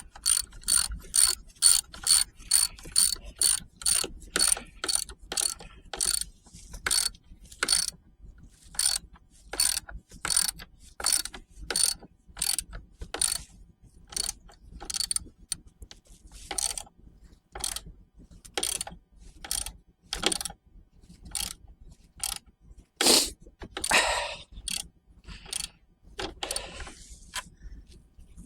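Ratchet wrench clicking as stainless steel nylock nuts are run down onto the fairlead bolts, about two clicks a second at first, then slower and more broken, with a longer rasp about three quarters of the way through.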